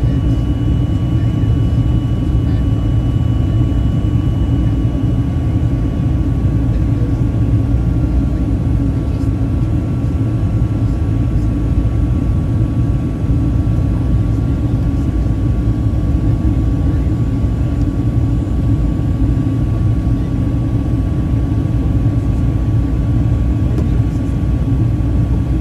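Steady cabin noise of a Boeing 737-800 on approach, heard from a window seat beside the wing: a low rumble of its CFM56 turbofan engines and the airflow, with a thin steady whine, and a second higher tone that fades out about six seconds in.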